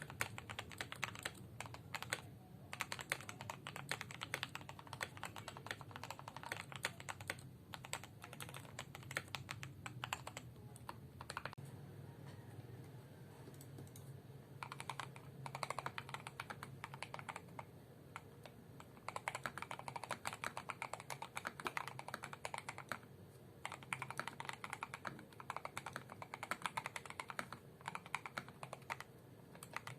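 Typing on a modded Attack Shark K98 mechanical keyboard: stock red switches lubed with Krytox 205g0, a foam-and-tape-modded case and grease-lubed stabilizers. It gives runs of quick keystroke clacks with short pauses. About twelve seconds in the typing thins out briefly and then resumes with PBT XDA-profile keycaps fitted.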